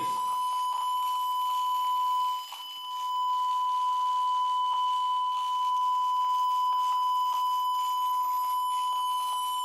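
A steady electronic tone from a frequency generator, holding one fairly high pitch like a long beep. It dips briefly in level a little over two seconds in.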